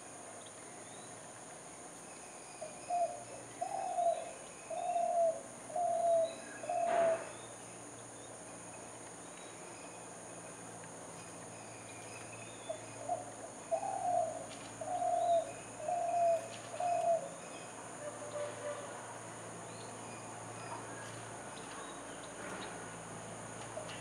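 A dove cooing: two phrases of about five low coos each, some ten seconds apart, with faint high bird chirps scattered between them.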